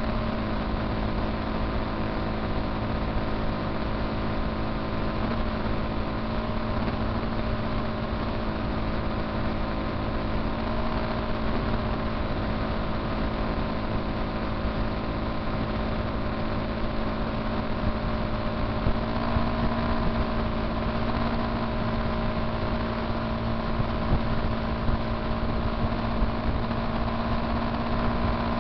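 Motorcycle engine running steadily at highway cruising speed, one constant engine tone over a rushing noise of wind and road; the pitch rises slightly about two-thirds of the way through.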